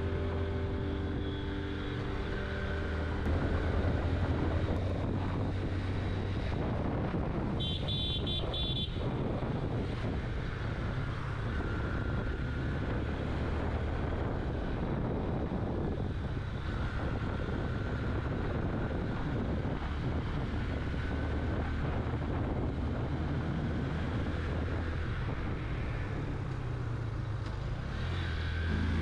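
Suzuki GSX-R motorcycle being ridden, its engine giving a steady low drone under road and wind noise. A short high beep sounds about eight seconds in.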